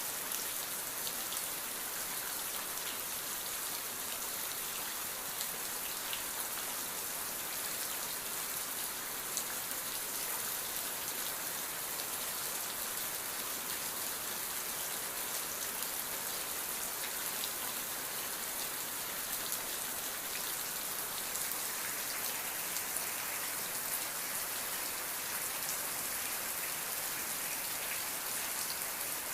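Steady rain falling, an even hiss with many fine drop ticks, without thunder.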